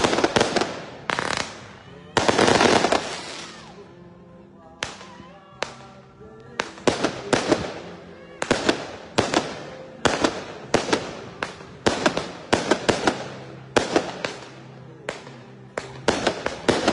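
Firecrackers going off: a dense, rapid run of cracks about two seconds in, then separate sharp bangs and quick clusters of bangs, sometimes several a second, for the rest of the time.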